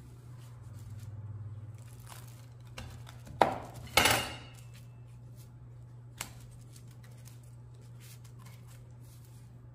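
A kitchen knife cutting through a crisp grilled mutabbaq on parchment paper over a wooden board: two loud crunching cuts about three and a half and four seconds in, followed by a few fainter rustles of the paper. A steady low hum lies underneath.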